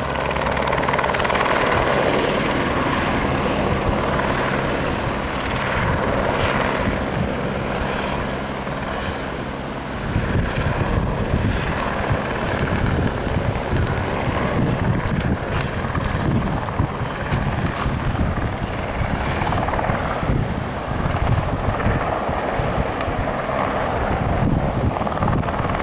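Helicopter running, with its rotor making a steady low drone. About ten seconds in, the low end turns rough and gusty, like rotor wash or wind on the microphone.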